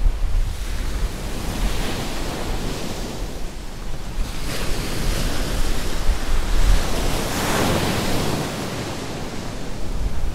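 Small sea waves washing onto a sandy beach, a hiss that swells and fades every two to three seconds, with wind rumbling on the microphone.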